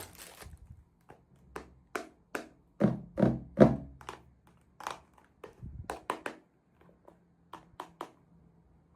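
Hands handling small plastic toy pieces: a string of irregular light taps and clicks, loudest around three to four seconds in.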